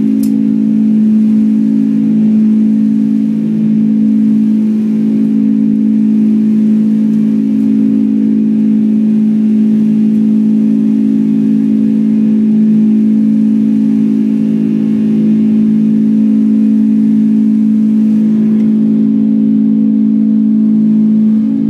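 Boeing 747-200 jet engines heard from inside the passenger cabin during the climb after takeoff: a loud, steady drone with a strong deep hum over airflow noise.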